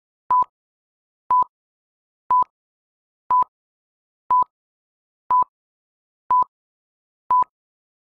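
Countdown timer beeping: short beeps at one steady pitch, one a second, eight in a row with silence between, counting down the rest before the next exercise.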